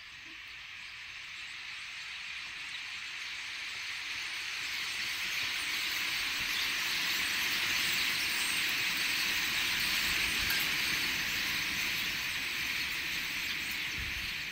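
Huge flock of birds passing overhead, heard as a steady rushing hiss that swells over the first half and eases a little near the end.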